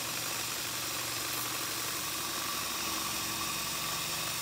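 Handheld power tool running steadily while working a steel mounting plate: an even, hissing noise with no pauses.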